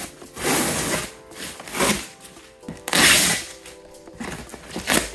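Packing tape being ripped off a cardboard box in several sharp pulls, tearing away the box's top paper layer, with the loudest rip about three seconds in. Soft background music runs underneath.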